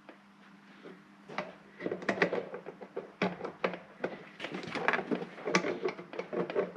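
Hand-fitting of the ACIS actuator onto its intake valve shaft: a string of light clicks and knocks that starts about a second in, as the part jams and won't quite slide on.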